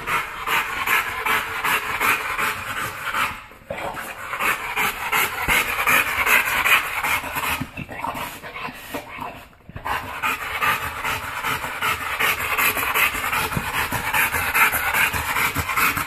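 American bulldog panting hard and fast, out of breath after a run of about 2.5 to 3 miles. The panting breaks off briefly twice, about a fifth of the way in and again a little past halfway.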